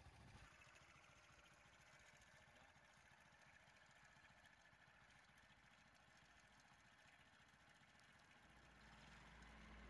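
Near silence with a faint steady hiss; near the end the low hum of an approaching vehicle's engine fades in and grows louder.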